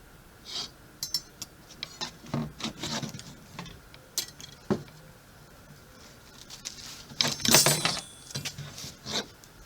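Light metal-on-metal clinks and taps, scattered and irregular, with a denser ringing metallic scrape about seven and a half seconds in.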